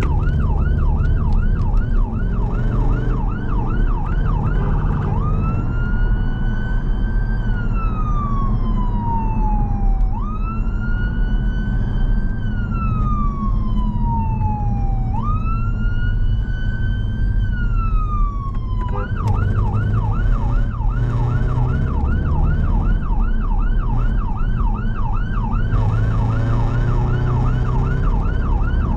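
Ambulance siren heard from inside the vehicle. It starts as a fast yelp, about three rises a second, switches about five seconds in to a slow wail that sweeps up and down three times, then returns to the fast yelp. Engine and road noise run underneath.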